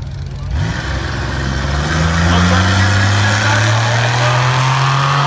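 Two drag-racing cars, a supercharged front-wheel-drive V6 four-door and an LT1 V8 wagon, idle on the line, then launch about half a second in. Their engine pitch jumps and then climbs steadily as they accelerate down the strip.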